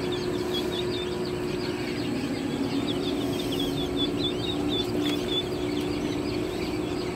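A brood of young northern bobwhite quail chicks peeping continuously, a dense chorus of short high chirps. A steady low hum runs underneath.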